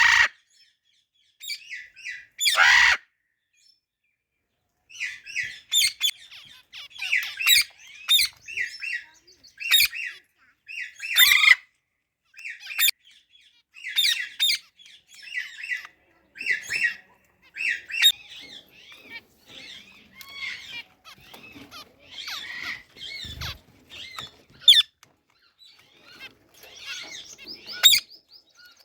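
Pet parrots chirping in quick, repeated short calls, with a loud harsh squawk a few seconds in.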